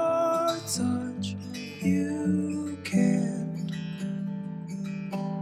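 Background music of a strummed acoustic guitar, with chords changing about once a second.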